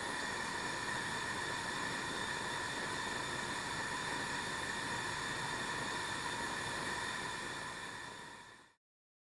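Steady hiss of gas flowing and burning at a small torch nozzle, fading away about eight seconds in.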